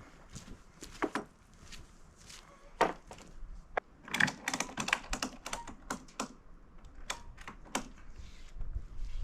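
Light wooden clacks and taps at irregular intervals, with a quick run of them about halfway through: thin wooden stickers being handled and laid down on a stack of freshly sawn elm slabs.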